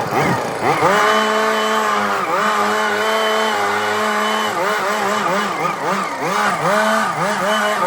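Small gasoline engine of a hand-operated power tool revving up about half a second in, then running fast, its pitch dipping and recovering over and over as it takes load, faster in the second half.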